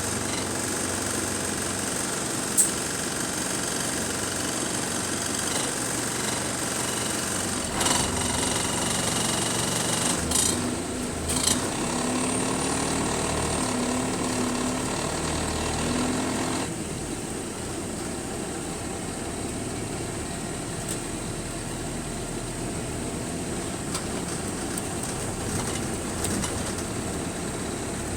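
Bus engine running, heard from on board, with a steady rattle and a few sharp knocks. About two-thirds of the way through the sound drops and thins out.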